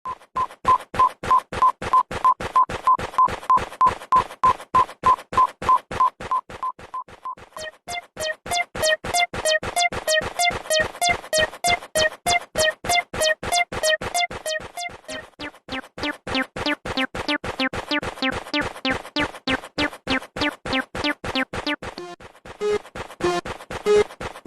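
Japanese railway level-crossing warning bells ringing a steady repeating ding, about two to three strikes a second. The alarm switches to a different bell sound three times, about seven, fifteen and twenty-two seconds in, the first one the highest in pitch.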